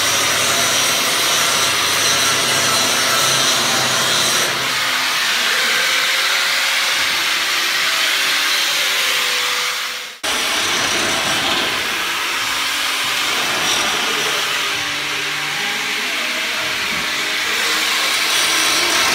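Angle grinder grinding the metal hull plating of an old riveted barge: a loud, steady grinding noise. About halfway it cuts off abruptly, and a similar steady workshop machine noise follows.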